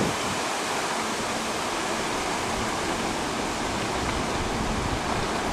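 Steady rushing of fast-flowing floodwater in the swollen Burnett River.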